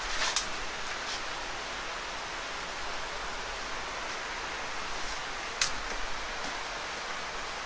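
Steady rushing of a mountain stream, with a few short sharp clicks over it.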